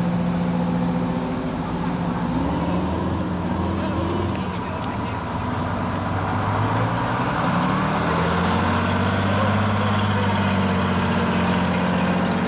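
Antique fire engines driving slowly past one after another, their engines running with the pitch sliding up and down as they pull away and change gear.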